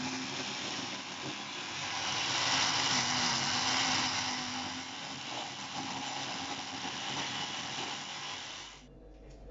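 Countertop blender running, blending a smoothie of spinach, berries, mango and cream; the motor stops abruptly about nine seconds in.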